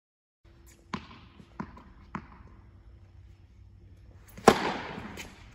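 Tennis ball bounced three times on an indoor hard court, about half a second apart, then a loud racket strike on the serve about four and a half seconds in, echoing through the tennis hall.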